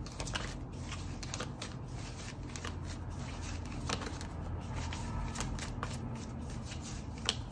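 Tarot cards being shuffled by hand: a continuous run of soft, irregular card clicks and slides.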